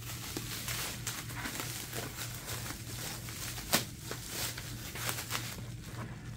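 Plastic bubble wrap rustling and crinkling as a laptop is slid out of it by hand, with one sharp click near the middle.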